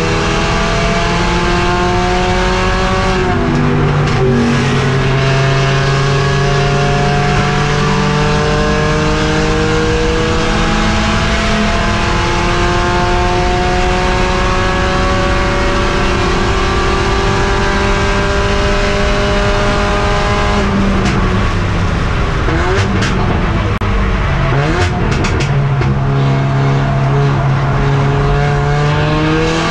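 Mercedes CLA45 AMG's turbocharged four-cylinder engine heard from inside the race car's cabin, accelerating under load: the revs drop at an upshift about three seconds in, then climb slowly for a long pull until about twenty seconds in. The revs then fall and waver unevenly with a few sharp crackles as the car slows, before it pulls again near the end.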